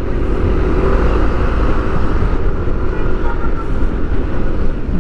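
Steady low rumble of a moving car, engine and road noise together.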